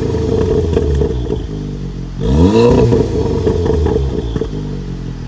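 SEAT Leon Cupra ST 300's turbocharged four-cylinder heard at the quad exhaust tips while stationary: a sharp rev about two seconds in that rises and falls back, with crackles and pops on the overrun, then settling to a steady idle near the end.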